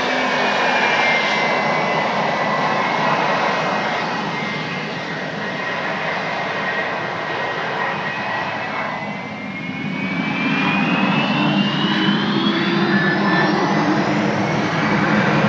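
Bombardier Challenger 300's twin Honeywell AS907 (HTF7000) turbofans running: a high whine over a broad rush, sagging in pitch and loudness as the jet rolls and turns. From about ten seconds in they spool up for takeoff, the whine climbing steadily in pitch while a deeper rumble grows louder.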